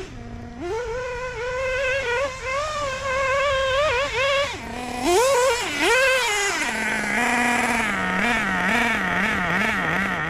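LRP .32 (5.2cc) nitro engine in a 1/8 scale buggy running. It revs up sharply and holds at high revs, drops back, and revs up twice more. About two-thirds of the way in it settles to lower revs with a wavering pitch.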